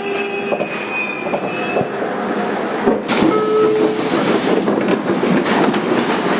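JR Kyushu 817 series 3000 subseries electric train braking to a stop. The motor's falling whine fades out within the first half-second, leaving wheel and brake rumble with a sharp jolt about three seconds in as the train comes to rest.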